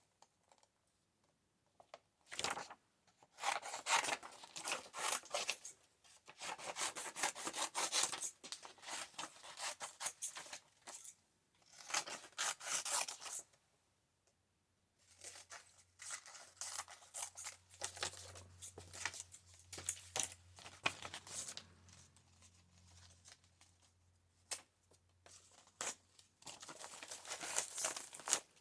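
Paper being torn by hand, in several spurts of tearing and crackling with short pauses between, as a printed image is worked free for a collage page.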